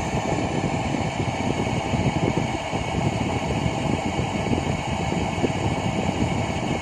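Steady machinery drone with a fan-like hiss, even and unbroken, with no distinct events.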